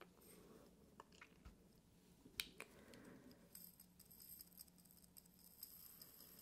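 Faint sound of granulated candle wax poured from one small glass into another: a few light glass clicks, then from about three and a half seconds in a soft, steady trickle of grains with fine ticking.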